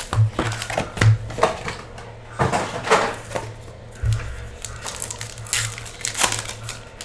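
Foil-wrapped trading-card packs being handled and stacked out of a cardboard hobby box: irregular crinkling rustles of the wrappers with light taps of packs against each other and the box.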